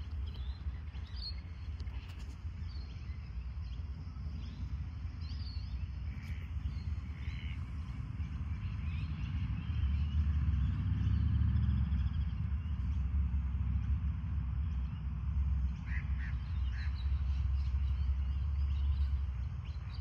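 Low wind rumble on the microphone that grows stronger about halfway through, with scattered short bird calls over it.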